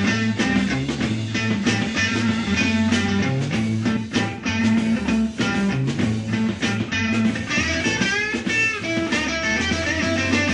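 Rock music with guitar over bass and a steady drum beat.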